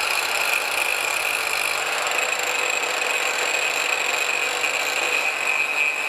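Angle grinder running steadily with a constant high whine, its disc grinding down the end of a steel electric-motor shaft.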